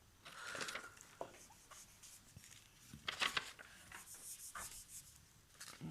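Pen scratching on paper in a few short strokes, as if drawing or marking on a wiring diagram, with faint rubbing in between.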